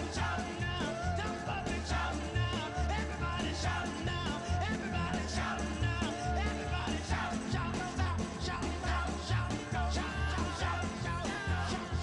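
Background music: an upbeat rock song with a singer over a steady beat.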